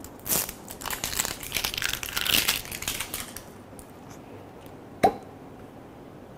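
Crinkling and tearing of the seal wrapped around the neck of a Hibiki whisky bottle as it is peeled off, lasting about three seconds. About five seconds in comes a single sharp click.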